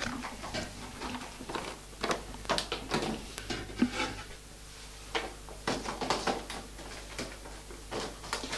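Irregular knocks and clicks of kitchen utensils and dishes being handled while food is prepared.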